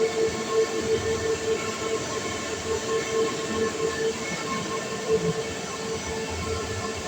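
Steady machinery noise running evenly, with a constant mid-pitched hum over a rumbling wash.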